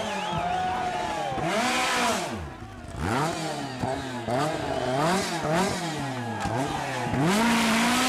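Lancia 037 Group B rally car's supercharged four-cylinder engine being revved hard in a run of quick throttle blips, the revs rising and falling again and again, then held high for a moment near the end.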